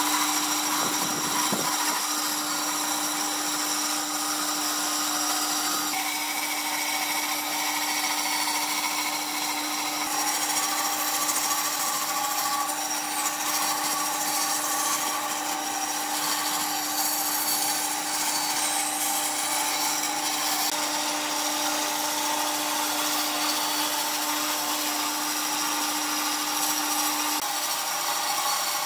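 Bandsaw cutting a thick wooden plank along a curved line, with an even sawing hiss and a steady hum underneath. The hum drops out near the end.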